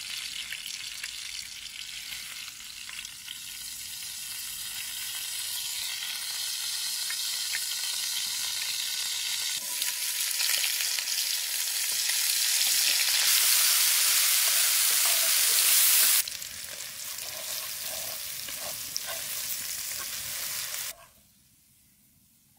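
Oil sizzling in a hot frying pan. The sizzle grows louder about ten seconds in as sliced onions go into the fat, drops suddenly at about sixteen seconds, and cuts out near the end.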